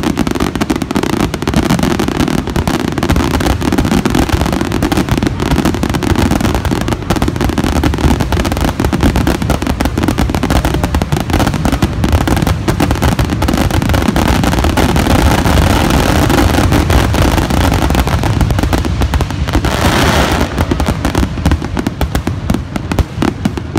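Aerial fireworks finale barrage: shells bursting in rapid, overlapping succession with crackling stars and deep rumbling booms, with no pause between them. A short rushing hiss comes through near the end.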